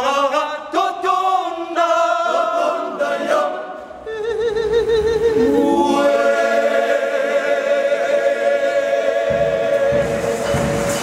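Men's choir singing a cappella, breaking off briefly about four seconds in, then holding one long chord.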